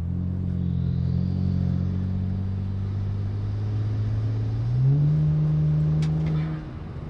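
BMW 335i's N54 twin-turbo inline-six pulling under throttle, heard from inside the cabin with the windows up. The engine note climbs slowly, jumps higher about five seconds in, then falls away and gets quieter near the end.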